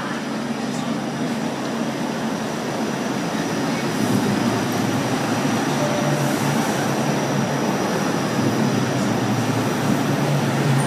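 Bombardier Flexity Outlook low-floor streetcar rolling past at low speed, a steady rumble with a low hum that grows louder about four seconds in as the cars draw alongside.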